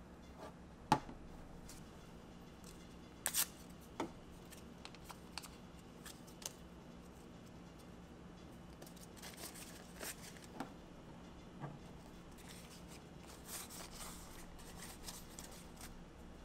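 Hands handling a phone and its packaging: scattered light clicks and taps, the sharpest about a second in and a quick double click a few seconds later, with stretches of soft rustling in the second half. A faint steady hum lies underneath.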